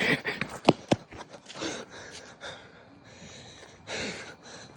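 Short breathy gasps from a person, with two sharp clicks about a second in.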